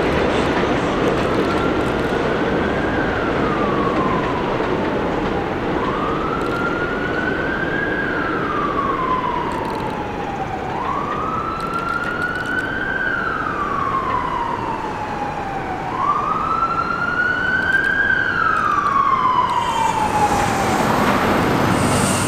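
Emergency vehicle wail siren, rising and falling slowly, four cycles of about five seconds each, over the steady running noise of a subway train on elevated track.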